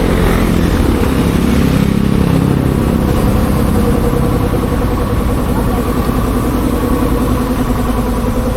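Motorcycle engine running steadily at a constant speed.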